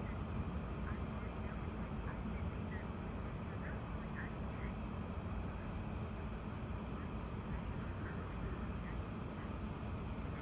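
Steady high-pitched insect chorus droning without a break, over a low rumble, with a few faint short chirps.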